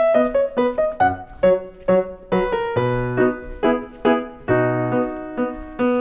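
Background piano music: a melody of struck notes, about two to three a second, each ringing and fading, over lower bass notes.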